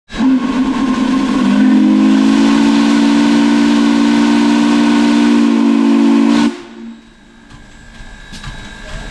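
Steam whistle on U.S. Sugar steam locomotive No. 148 blowing one long, deep chord blast before departure, opening out into its full chord about a second and a half in. It cuts off sharply about two-thirds of the way through, leaving a much quieter background.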